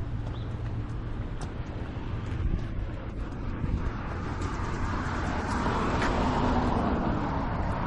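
Outdoor street ambience with road traffic: a steady low rumble that swells about four seconds in as a vehicle passes.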